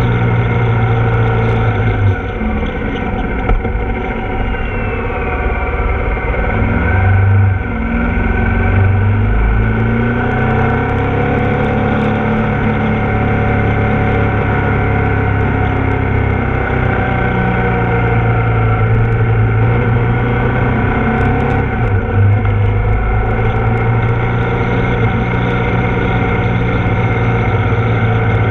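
Ducati Multistrada's V-twin engine running under way, its note rising and falling several times as the bike speeds up and slows.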